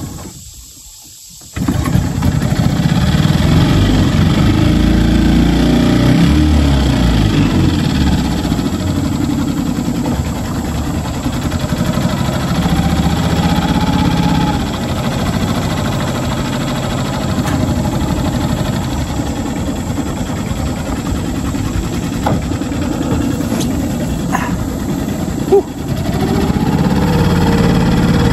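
Hangkai 6.5 hp single-cylinder four-stroke outboard catching suddenly about a second and a half in, then running under way with the engine note easing around the middle and coming up again near the end. One sharp knock sounds shortly before the end.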